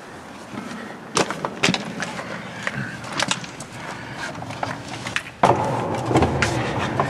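Scuffing footsteps and sharp knocks on concrete as people clamber through a narrow passage. About five and a half seconds in, a louder steady rubbing noise starts as the camera brushes against the concrete and a jacket.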